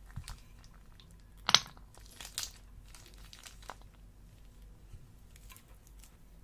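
Close-up crinkling and crunching handling noises with scattered clicks, the sharpest about one and a half seconds in.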